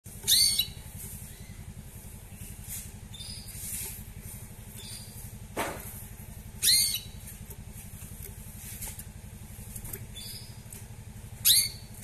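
A molting domestic canary giving three loud call notes that sweep down in pitch, several seconds apart, with a few softer short notes between them. A steady low hum runs underneath.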